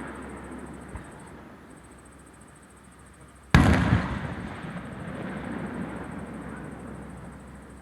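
Fireworks display: a faint thump about a second in, then one loud aerial shell burst about three and a half seconds in, its boom echoing and dying away over the next few seconds.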